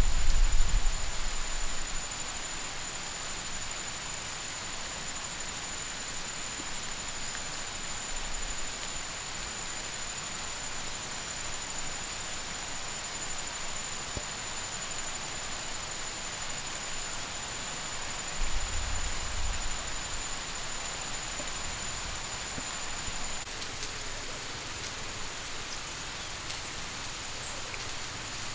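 Garden mini sprinklers spraying water over soil and leaf litter, a steady rain-like hiss, as the fertilizer is watered in. A thin steady high whine runs alongside and cuts off suddenly about two-thirds through, and a low rumble fades out in the first two seconds.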